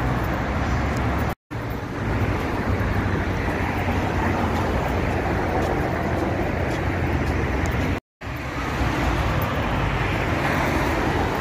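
Road traffic on a multi-lane city road: cars passing by with a steady noise. It drops out to silence twice for a split second, about a second and a half in and about eight seconds in, where shots are cut together.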